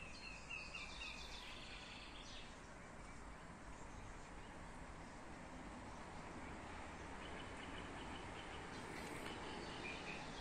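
Quiet outdoor ambience: a steady low background hiss, with faint high bird chirps at the start and again near the end.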